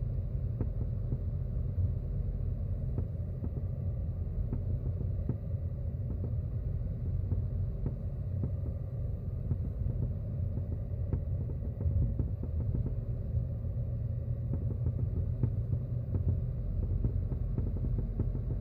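Deep road rumble inside a Subaru WRX S4 (VAG) driving slowly, heard from the passenger footwell, with repeated irregular light knocks and clicks: the 'kotokoto, bokiboki' knocking from around the left front wheel that the car makes at about 20–40 km/h.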